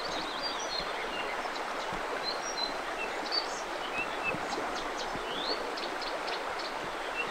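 Steady outdoor background hiss with many short, high bird chirps and whistles scattered through it from several birds.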